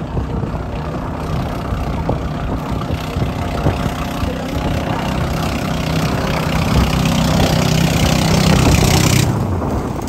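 Engine of a towing outrigger boat (bangka) running steadily under way, mixed with wind on the microphone and rushing, splashing water. The engine grows louder a few seconds in, and the hiss of wind and spray drops away suddenly near the end.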